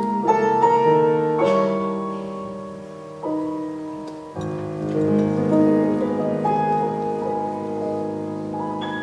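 Grand piano playing the slow closing bars of a ballad: a few chords struck in the first half, then held notes that ring and die away.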